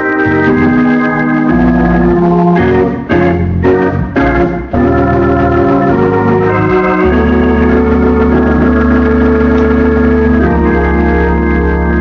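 Organ playing gospel music in long held chords, broken by a few short choppy stabs about three to five seconds in, then settling onto a steady low bass note under the chords.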